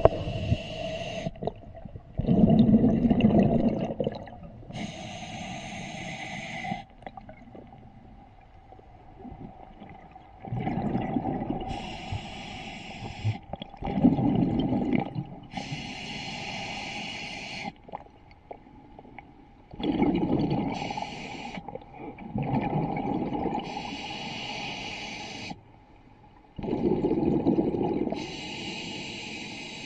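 Open-circuit scuba breathing heard underwater: the regulator's demand valve hisses on each inhale, then exhaled bubbles gurgle and rumble out of the exhaust. The breaths come evenly, roughly every four to five seconds.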